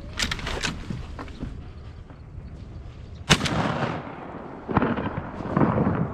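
Shotgun fired at incoming ducks: one sharp, loud blast about three seconds in, ringing off briefly. Two duller bursts of noise follow near the end.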